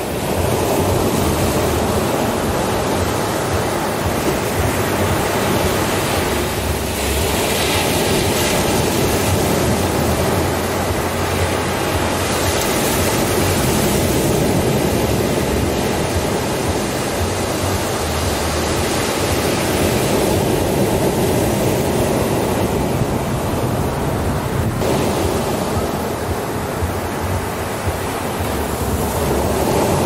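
Ocean surf breaking and washing up a sandy beach: a continuous rush of water that swells and eases every few seconds as each wave comes in.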